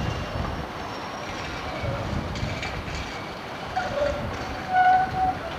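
Older Amsterdam GVB tram running over the rails at a junction, a low rumble with brief high wheel squeals as it takes the curve; the loudest squeal is a short steady tone near the end.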